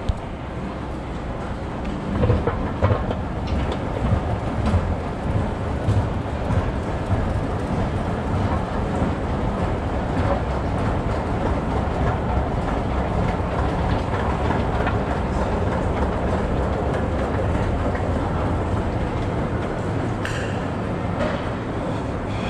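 Steady low mechanical rumble and clatter in an underground metro station, with a few knocks in the first few seconds.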